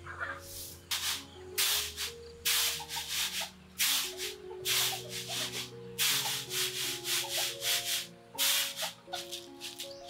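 Short rasping scrapes, irregular, about one or two a second, over soft instrumental background music.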